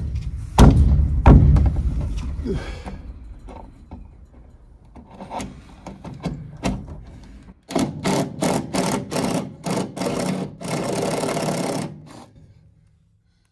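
Makita cordless drill boring up into a wooden beam with a wood bit. It runs loud at first and then fades, and after a lull it comes in short bursts on the trigger, about three a second. It then runs steadily for about a second and a half before stopping.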